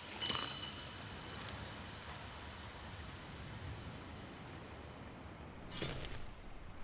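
Night insects, crickets, trilling in a steady high chorus over faint background hiss. There is a short burst of noise about six seconds in.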